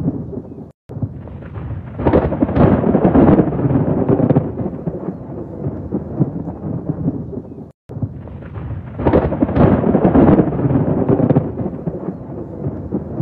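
Thunderstorm: continuous rolling thunder with two long, loud crackling peals, one about two seconds in and another about nine seconds in. The sound cuts out for an instant twice.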